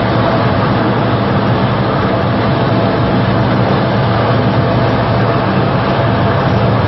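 A C-130 Hercules' four turboprop engines running on the ground: a loud, steady drone with a low hum and a thin steady whine above it.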